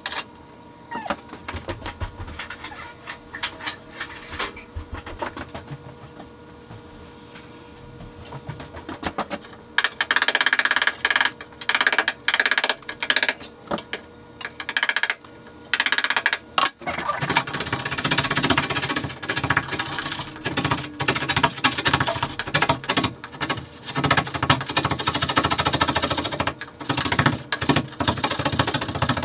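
Tool work with scattered clicks and knocks, then from about ten seconds in loud, noisy bursts that start and stop, running more continuously through the last third.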